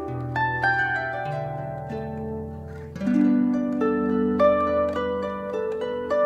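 Background music: a melody of plucked notes over low, held bass notes.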